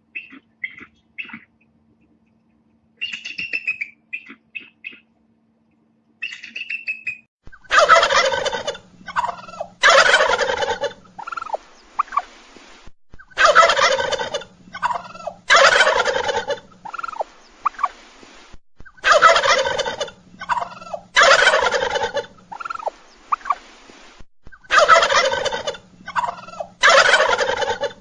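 Bald eagle giving a few short, high, chattering calls, then a male wild turkey gobbling loudly. The gobbles come in four bouts about every six seconds, each with two long gobbles followed by smaller notes.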